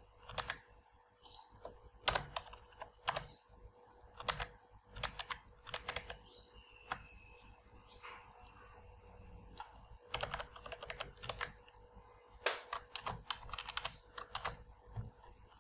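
Typing on a computer keyboard: irregular short bursts of keystrokes with pauses between, over a faint steady hum.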